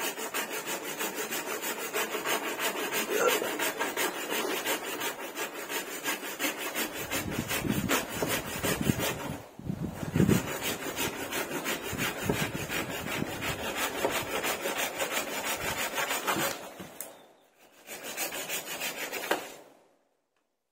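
Wood being sawn by hand with quick, even back-and-forth strokes. The strokes pause briefly twice and stop near the end.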